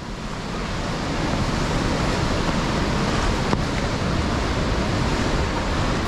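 Steady rushing of a mountain river, with wind buffeting the microphone.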